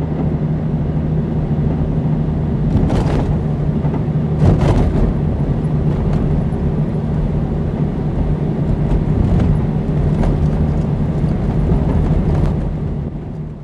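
A 4x4 vehicle driving, its engine running steadily under load, with clunks and rattles from the vehicle about three and four and a half seconds in and lighter rattles later. The sound fades out near the end.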